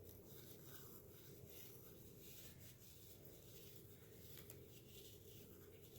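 Near silence, with faint rustling of dried oregano being crumbled by hand.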